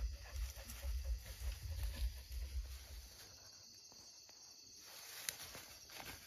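Night insects chirring steadily, with light rustling and ticking of dry grass as a hunting dog pushes through it. A low rumble on the microphone during the first three seconds, and a single sharp click about five seconds in.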